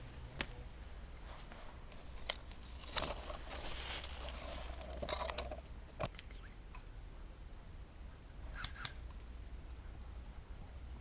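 Scattered sharp clicks and rustling. From about halfway through, a faint high chirp repeats about twice a second.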